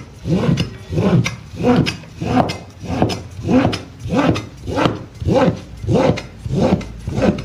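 Cleaver blade rasping across a thin wooden sheet as it shaves it into toothpick-thin slivers. The scraping strokes come at a steady rhythm of about three every two seconds.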